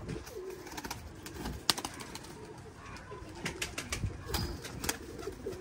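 Domestic pigeons cooing, low wavering calls repeated throughout, with scattered sharp clicks and taps, the loudest about a second and a half in.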